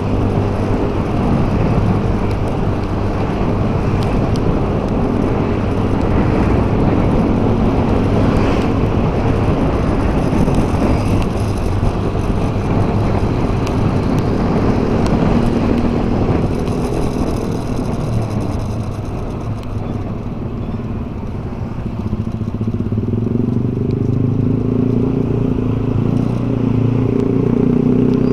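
Motorcycle engine running steadily at road speed, with road and wind noise. It eases off a little about two-thirds of the way through and picks up again near the end.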